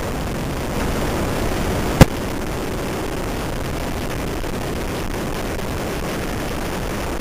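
Steady wind rush on the microphone and motorcycle engine noise at road speed. A single sharp pop or knock about two seconds in is the loudest sound.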